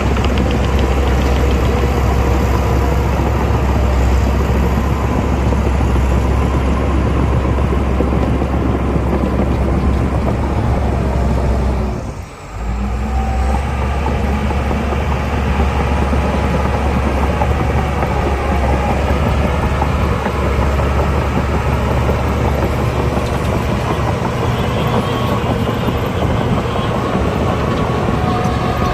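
Heavy diesel earthmoving machinery running steadily with a deep engine rumble; the sound briefly drops away about twelve seconds in, then picks up again.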